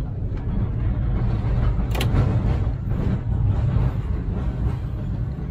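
Historic streetcar under way, a steady low running rumble heard from the operator's cab, with a sharp click about two seconds in.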